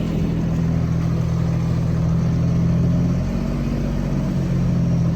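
An engine running steadily at a low, even pitch, its note shifting slightly about three seconds in.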